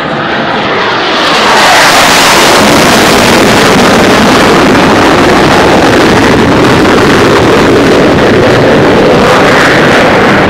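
Jet aircraft roaring past low overhead. The roar builds over the first two seconds, holds very loud, and begins to ease near the end, with a faint falling then rising sweep in pitch. It is loud enough to overload the phone's microphone.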